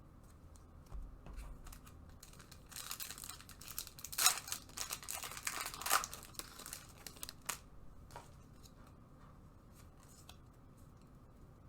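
A trading-card pack wrapper being torn open and crinkled, a crackly tearing that lasts about five seconds, starting a few seconds in, then a few faint ticks as the cards are handled.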